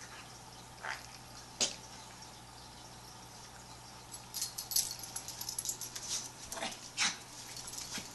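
A pet dog coughing: a couple of short coughs, then a run of rapid, crackly hacking in the middle, and two more short coughs near the end.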